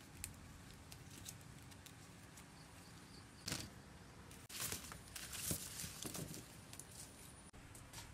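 Fresh vegetables (baby corn, small green eggplants, chillies) being handled in woven baskets: a few short bursts of rustling and light knocks, starting about three and a half seconds in, over a quiet background.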